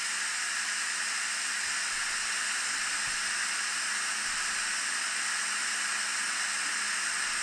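Instant Pot Pro releasing its pressure: steam rushing out of the quick-release valve through the perforated diffuser cover, a steady hiss. The diffuser keeps the steam from shooting straight up and makes the release much quieter.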